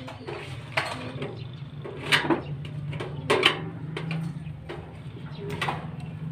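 Irregular knocks and clatters, about half a dozen, the loudest a pair about two seconds in and another pair just past three seconds in, over a low steady hum.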